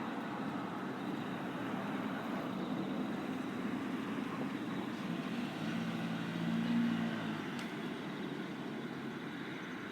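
Steady outdoor background noise with a motor vehicle's engine hum swelling and fading past about two-thirds of the way through.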